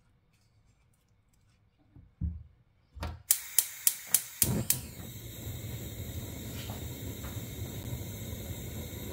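A gas stove burner being lit. After a couple of soft knocks, the spark igniter clicks about six times, roughly three a second, and then the burner catches and runs with a steady hiss of gas flame.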